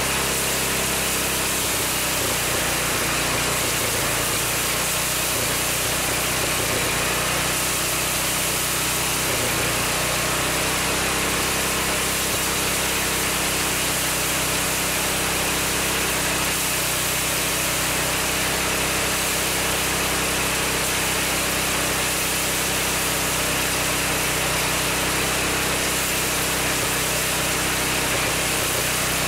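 Small single-cylinder gasoline engine running steadily at constant speed, driving a homemade rice threshing drum as rice stalks are fed through, the engine's drone mixed with a dense whir of machine and straw noise.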